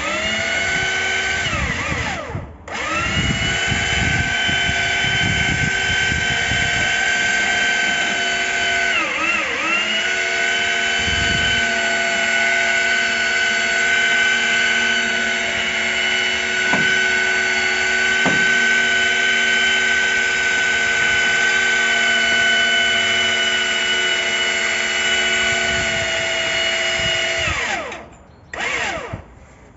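Motor of a powered air-conditioner lift running steadily as it hoists the outdoor unit. It stops briefly about two and a half seconds in and restarts, dips in pitch for a moment about nine seconds in, runs on, then cuts off near the end, followed by one short burst.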